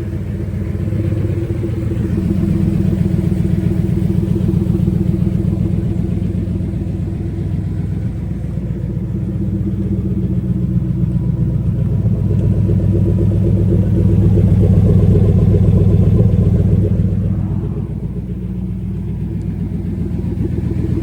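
Ford 5.0-litre Coyote V8 in a Factory Five Cobra replica running while still cold, warming up through BBK headers. The engine note rises and falls gently twice, easing off near the end.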